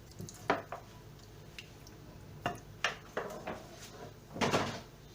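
Raw chicken wings being put into a bowl: a few separate knocks and clinks against the bowl, the loudest a little before the end.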